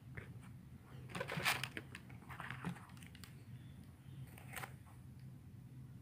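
Crinkly rustling of paper wrapping and a cardboard shoebox being handled, in several short bursts, over a low steady hum.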